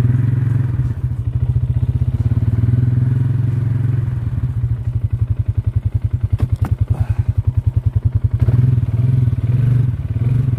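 Farm bike engine running at low revs. It settles into a slow, evenly pulsing idle in the middle and picks up to a steadier note again near the end.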